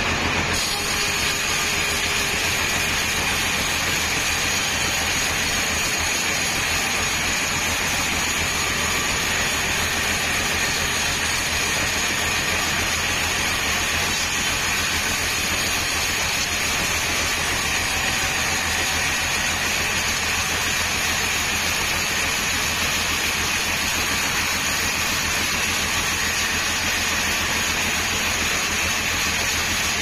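Band sawmill running steadily, its blade sawing lengthwise through a teak log. A constant low motor hum under the hiss of the cut, with a faint high whine from the blade.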